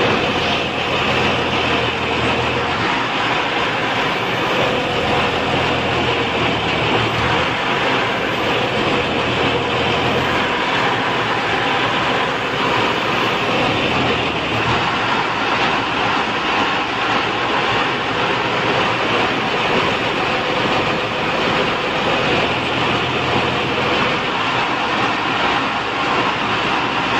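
Lorry crane's diesel engine and hydraulics running steadily while the crane holds and moves a shipping container. It makes a loud, continuous mechanical noise with a low drone that comes and goes every few seconds.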